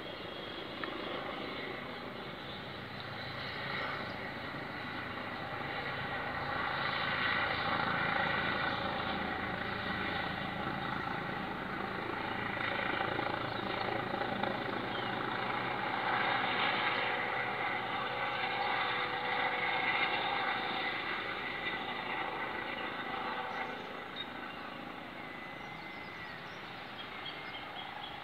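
Eurocopter EC145 rescue helicopter's rotor and turbines running as it descends to land, a steady drone that grows louder through the middle and fades near the end.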